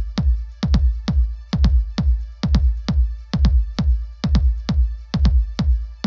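Background electronic music with a steady drum-machine beat of deep kick drums.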